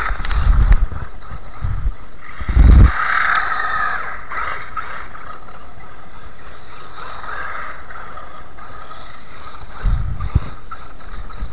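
Stock brushed electric motor and gearbox of a WLtoys 12428 1:12 RC truck whirring as it drives over icy, packed snow, the whir swelling twice as the truck passes. Low thumps come and go, the loudest about three seconds in.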